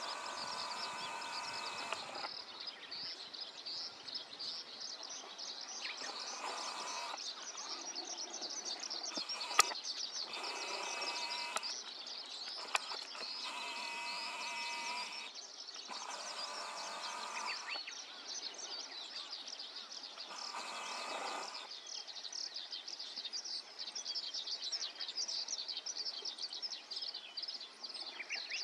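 Outdoor dawn chorus of small birds and insects: a constant high chirring, over which a bird sings short calls of about a second, several tones at once, repeated six times. A few sharp clicks sound near the middle.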